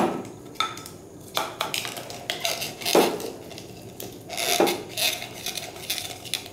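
Plastic syringe knocking and clinking against a glass beaker as it is worked to draw up a thick, viscous solution. A sharp knock comes at the start, a few more knocks and clinks follow, and there is some rubbing from the handling in between.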